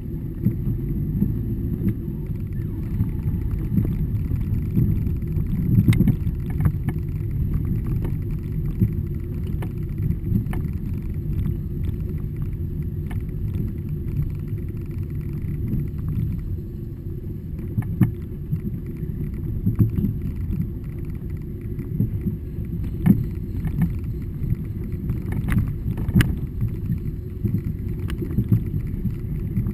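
Car driving slowly along a rough dirt track: a steady low rumble of engine and tyres on the dirt. Scattered sharp knocks and clicks come from bumps and loose stones.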